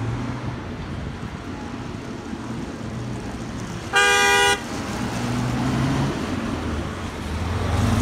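Road traffic going past, with engines humming. A vehicle horn sounds once, a single blast of about half a second a little past halfway, and a truck engine grows louder near the end as it comes closer.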